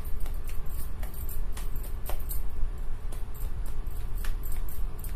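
Hands patting and slapping bajra (pearl millet) dough flat into a roti, with the bangles on the wrist clicking a few times a second in rhythm with the pats.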